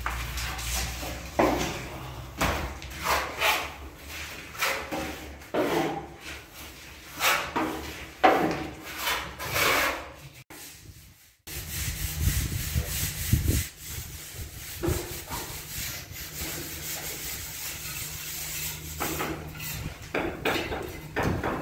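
Hand tool scraping a bare concrete ceiling in repeated rasping strokes, taking off old paint and loose plaster. About ten seconds in the sound drops out briefly, then the scraping goes on over a low hum.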